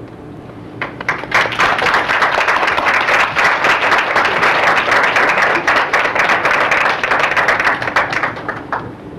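Audience applauding, many hands clapping together; it starts about a second in and dies away near the end.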